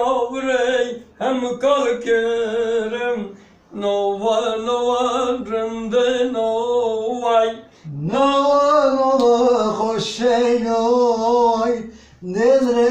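Unaccompanied male singing: long held notes with a wavering vibrato, sung in phrases of a few seconds broken by short breath pauses.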